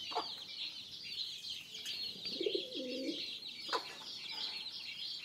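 Mixed flock of pigeons and chickens feeding: constant high chirping from many birds, one lower call a little past two seconds in, and a few sharp clicks.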